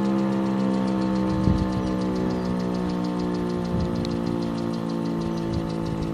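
Warning siren sounding the 'Feueralarm' fire-alarm signal, which calls out the volunteer fire brigade, during a siren test. Several steady tones are held together and slowly get a little quieter.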